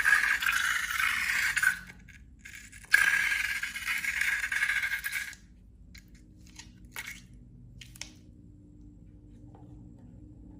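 Dense rattling and scraping, in two stretches of about two seconds each with a short gap between, followed by a few faint clicks.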